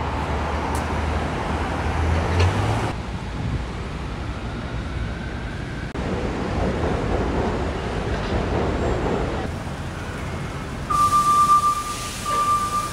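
City street traffic noise: a steady hum of passing cars, with an engine rising in pitch about two and a half seconds in. In the last two seconds a loud, steady high-pitched tone sounds, breaking off once briefly.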